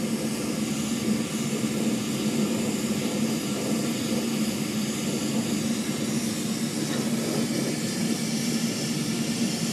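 Brazing torch flame burning steadily with an even rushing hiss as it heats a copper joint on a filter drier for brazing, over a constant low hum.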